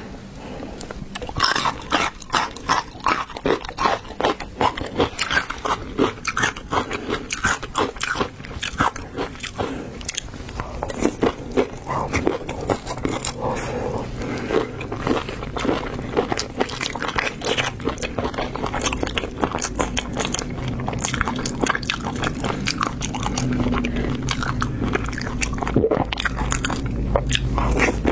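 Close-miked eating sounds: seafood being bitten and chewed, with many sharp crunches in quick succession at first, then a denser run of wet chewing over a low hum in the second half.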